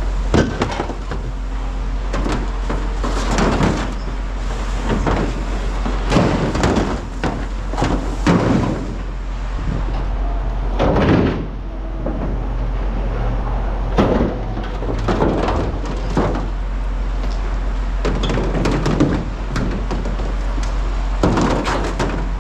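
Pieces of scrap metal being thrown and dropped, a series of clanks and bangs every second or so, over a steady low rumble.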